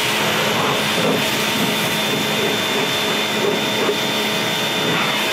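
Pressure washer running and spraying water on a car body: a steady motor-and-pump hum with a few constant tones over a hiss of spray.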